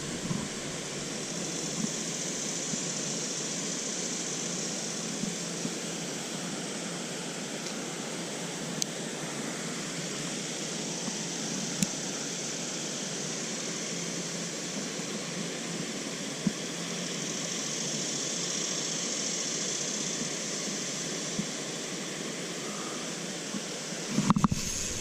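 Steady rushing of flowing stream water, with a few faint clicks scattered through it.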